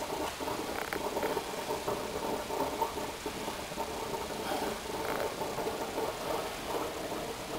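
Darjeeling Himalayan Railway B class No.19 standing in steam in the cab, a steady rumbling roar and hiss with no change in pace, and a few faint clinks.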